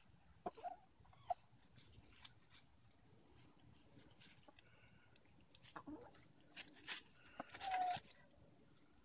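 Easter Egger hens foraging: a few short, soft clucks over scattered rustling and crackling of dry leaves as they scratch and peck, with the busiest burst of rustling and a call a little before the end.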